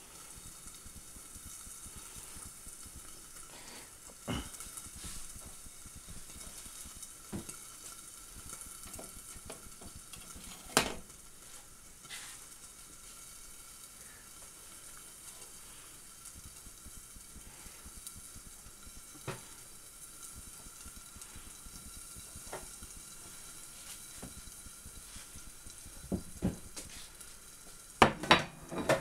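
An egg sizzling steadily in a non-stick frying pan under a glass lid. It is broken by a few sharp knocks, one loud one about eleven seconds in and a clatter near the end as a plate is set down.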